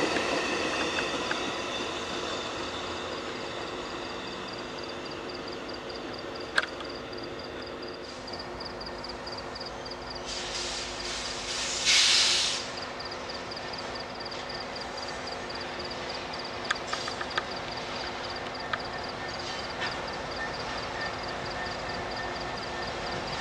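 A passenger train rumbles past and fades away, leaving a steady low hum of distant diesel locomotives with a regular high ticking over it. About ten seconds in, a loud hiss of air rises, then cuts off sharply a little after twelve seconds.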